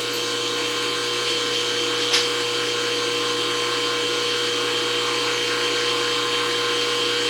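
Sharnoa CNC knee mill running with a steady electric hum and a high whine from its motors and drives, with one short click about two seconds in.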